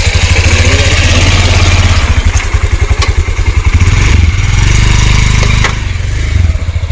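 Motorcycle engine running under way on a rough, rocky road, its note shifting about four seconds in, with a few sharp knocks and rattles.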